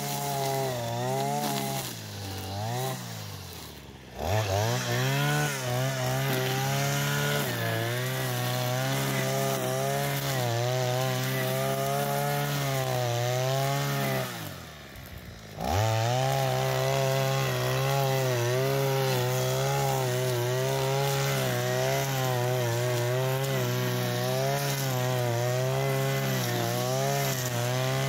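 Modified petrol brushcutter with a recently replaced engine, running at cutting speed while mowing grass. Twice, around 4 seconds and 15 seconds in, the revs fall away toward idle and then climb sharply back to full speed.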